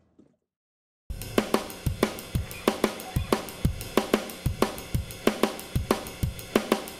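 Silence, then about a second in, soundtrack music starts with a drum kit playing a steady, even beat.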